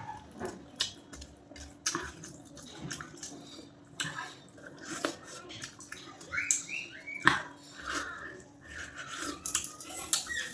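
Close-up eating sounds: wet chewing and smacking with irregular small clicks, and food being handled on a plate.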